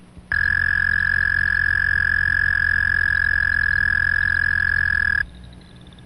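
Canadian toad's loud monotone trill: one long, steady, unchanging call that cuts off about five seconds in, leaving a fainter marsh background with faint distant calls.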